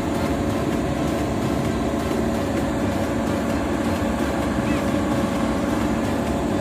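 Sumitomo SC1000-2 crawler crane's diesel engine running steadily at idle.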